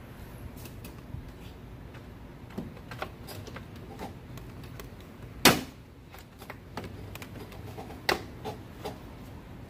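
Scattered clicks and knocks of hand work on a car's radiator cooling fan assembly as it is worked loose from its clips and mounts, with a sharp knock about five and a half seconds in and another about eight seconds in.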